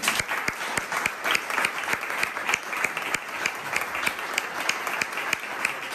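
Applause from a small audience: many hands clapping steadily, with some nearby claps standing out sharply.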